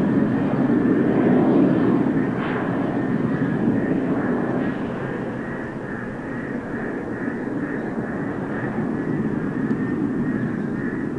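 Boeing 737-800's twin CFM56-7B turbofans at takeoff power, a steady jet rumble with a faint whine on top, slowly fading as the airliner moves away.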